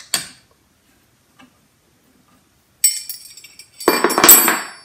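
Metal clinks with a ringing tone, then a louder metallic clatter with ringing near the end.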